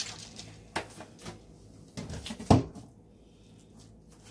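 Kitchen handling sounds at a small bowl of seasoning paste: a few light clicks and knocks from a bottle and a metal spoon against a ceramic bowl on the counter, with one louder thump about two and a half seconds in.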